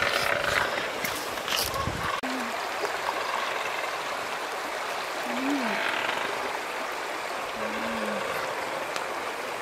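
Steady rushing background noise like running water, with a few faint clicks in the first two seconds and three short, low sounds that glide in pitch about two, five and eight seconds in.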